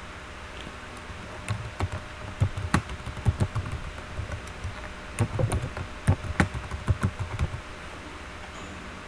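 Computer keyboard being typed on in two quick runs of keystrokes a couple of seconds each, with a short pause between them: a password typed, then typed again to confirm it.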